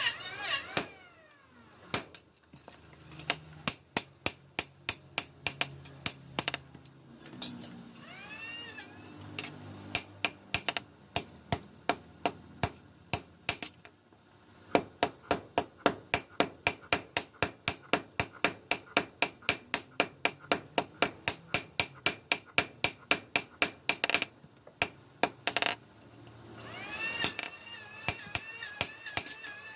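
Hammer blows ringing on steel while the chainsaw-bar blade is shaped: scattered strikes with pauses at first, then a fast steady run of about three blows a second. Near the end a steady, wavering whine comes in.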